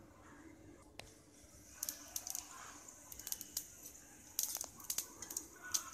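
Mustard seeds popping in hot oil in a tempering for sambar, with urad dal frying beside them. Sharp, scattered pops start about two seconds in and come in quick clusters after that.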